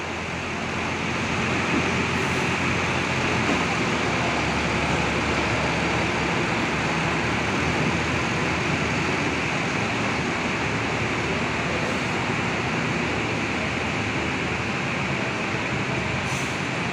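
Long-distance coach's diesel engine running as the bus moves slowly, a steady low rumble under an even hiss.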